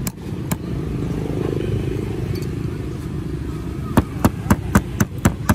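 A steady low rumble, and from about four seconds in a quick run of sharp taps, about four a second, like a spoon tapping a balut (boiled fertilised duck egg) shell to crack it open.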